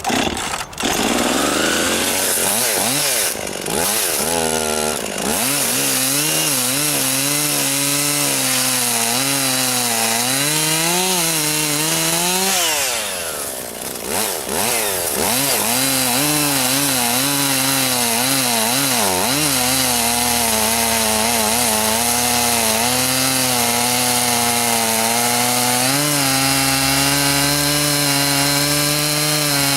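Two-stroke chainsaw bucking a felled juniper log into rounds. The engine pitch rises and sags as the chain bites into and clears the wood, with brief let-offs a few seconds in and again about halfway through.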